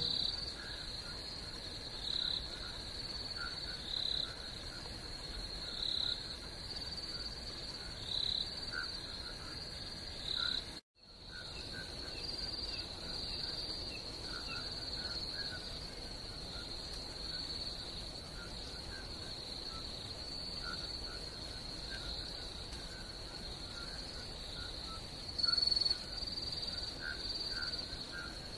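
Crickets trilling steadily and faintly, with a brief total dropout about eleven seconds in.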